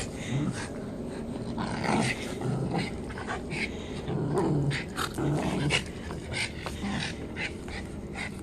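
Japanese Spitz puppy growling angrily in a run of short, irregular growls.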